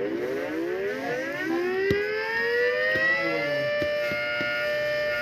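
Outdoor warning siren winding up, its pitch rising for about three and a half seconds and then holding a steady tone.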